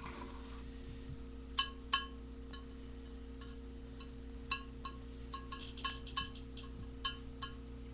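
About a dozen light, irregular chime-like pings, each a short ringing tone at the same few pitches, over a steady electrical hum.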